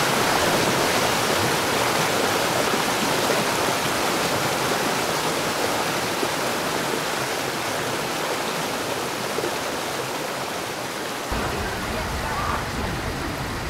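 Waterfall: a steady, even rush of falling water, with a deeper rumble joining about eleven seconds in.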